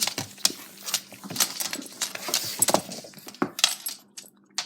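Irregular light jingling and clicking from a dog moving about, like metal collar tags rattling, with a quieter gap near the end.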